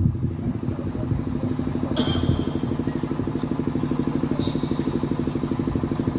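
A small engine idling steadily with an even, rapid pulse, plus a couple of brief high chirps.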